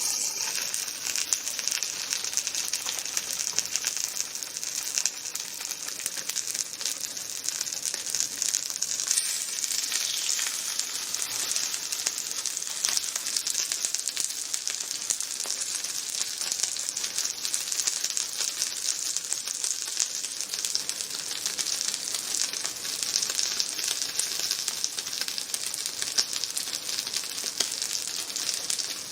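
Food sizzling steadily on a hot lava-stone grill plate, with a dense fine crackle.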